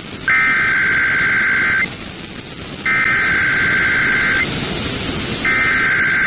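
NOAA Weather Radio SAME (Specific Area Message Encoding) header: three bursts of two-tone digital data, each about a second and a half long and a second apart, over steady radio hiss. It is the coded header that marks the start of a new alert, here a Tornado Watch.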